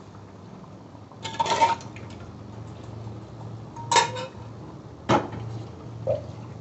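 Metal kitchen utensils clattering against a cooking pot: a short scrape, then a ringing clang about four seconds in and a duller knock a second later.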